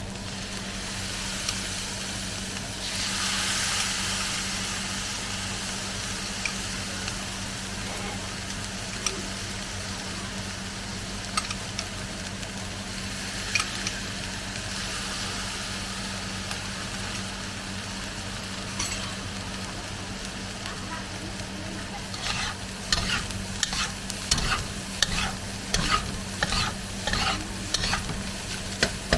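Garlic egg fried rice sizzling in a hot pan as it is stirred, the sizzle swelling for a couple of seconds a few seconds in. Near the end a spatula scrapes and knocks against the pan in a quick run of strokes, about two a second, over a steady low hum.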